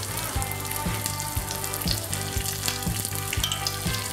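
Pearl spot fish coated in masala, shallow-frying in coconut oil in a pan: a steady sizzle with small pops and crackles. Soft background music with a steady beat plays underneath.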